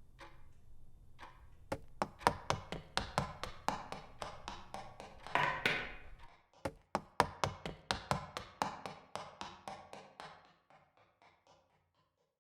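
A sound-effect track of sharp taps, about three a second, in a steady run that fades away and stops near the end. A brief rustling swell comes about halfway through.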